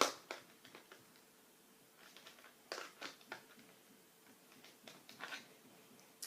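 Light clicks and short rustles of watercolour paint tubes being handled and set down, scattered irregularly, with the sharpest click right at the start.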